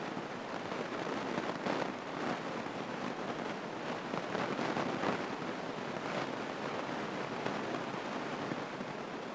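Steady rushing cabin noise of a small piston airplane taxiing on the runway, its engine and airflow heard from inside the cockpit as an even roar with no clear tone.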